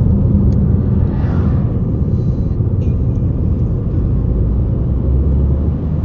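Steady low rumble of road and engine noise heard from inside a moving vehicle's cabin at highway speed.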